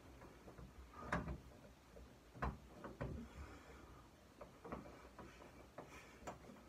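Faint, scattered rustles and soft thumps of a cloth bath towel being dabbed against the face, about one every second or so.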